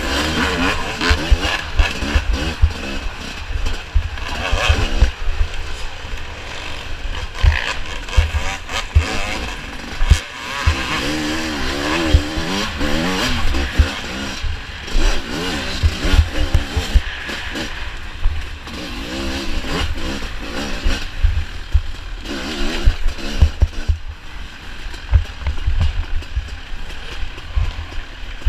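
Off-road dirt bike engine revving up and down again and again as it is ridden over rough ground, with constant low rumbling and knocks hitting the microphone.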